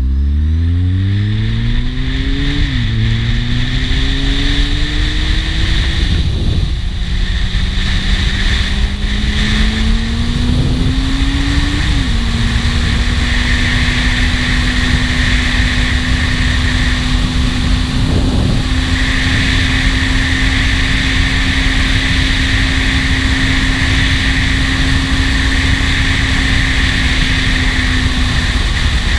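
Kawasaki Z750 S inline-four motorcycle engine accelerating, the pitch climbing and dropping back at each of several upshifts over the first twelve seconds. It then holds a steady cruise, with wind rushing over the helmet-mounted camera.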